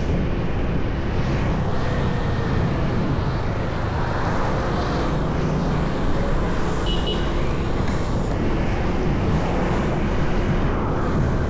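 Steady road and traffic noise while travelling along a busy city street: a dense low rumble of engines and tyres, with one short high-pitched tone about seven seconds in.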